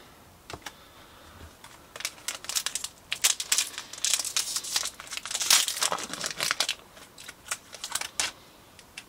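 Foil Pokémon booster pack being torn open and its wrapper crinkled. A dense run of crackling rustles starts about two seconds in and dies away after about eight seconds.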